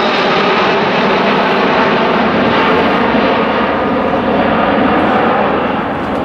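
Boeing 747-400 jet airliner climbing overhead after takeoff, its four Rolls-Royce RB211 turbofans giving a loud, steady roar. The higher hiss in the roar fades from about halfway through as the plane moves away.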